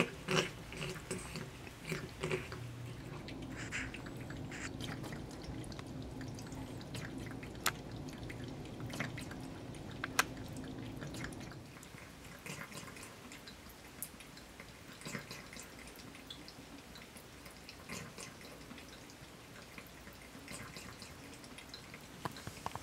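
Bathroom faucet running a thin trickle of water into a sink, with small wet clicks from cats lapping at the stream. The running water gets quieter about halfway through.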